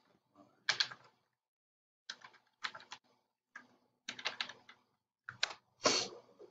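Typing on a computer keyboard: short, irregular keystroke clicks in small clusters, with a louder stroke near the end as the search is submitted.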